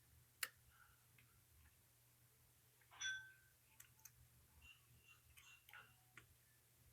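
Faint, scattered metallic clicks and ticks of a lock pick working the pin stacks of a Lockwood 334B45 padlock under very light tension, with one brief ringing metal tick about three seconds in.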